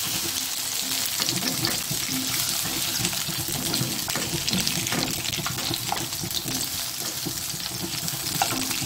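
Green eggplant slices sizzling in hot oil in a frying pan: a steady crackling hiss. Light scrapes and clicks come from a wooden spatula and a metal slotted spoon working against the pan as the slices are scooped out to drain.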